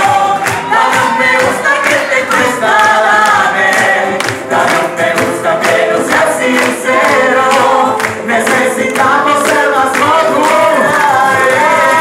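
Live band music with several voices singing together over a steady percussion beat.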